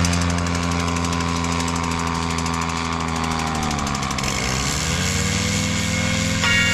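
Paramotor engine and propeller running at high power, its pitch dipping about four seconds in and then climbing back up.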